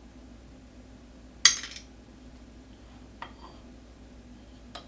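A sharp metallic clatter about a second and a half in, then a few faint clicks: tools or metal parts being handled and set down on a workbench.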